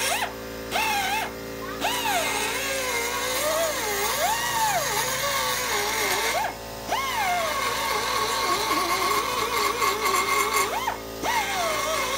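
Background music: a melody that glides up and down over steady held chords, with four short drop-outs.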